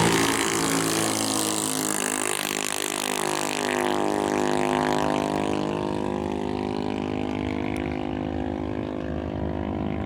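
Junior dragster's single-cylinder engine running, louder at the start and easing off within the first second, then running steadily with its note drifting slightly.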